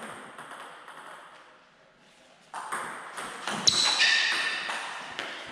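Table tennis rally: the celluloid-type ball clicking off the rackets and bouncing on the table. It is quiet at first, then a quick run of sharp hits starts about halfway, the loudest a little past the middle.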